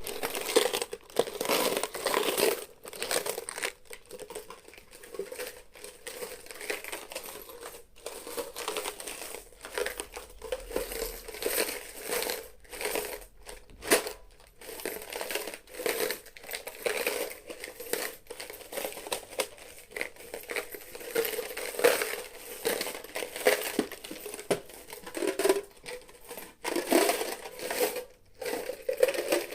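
Coins jingling and clinking continuously, a dense stream of small metallic clicks that swells and fades.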